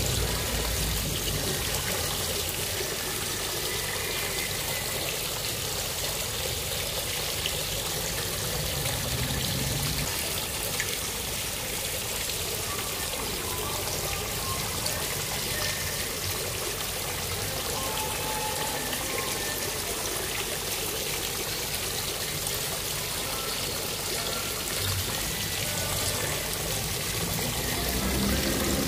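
Fountain water splashing and pouring steadily into its basin, with a song faint underneath that grows a little louder near the end.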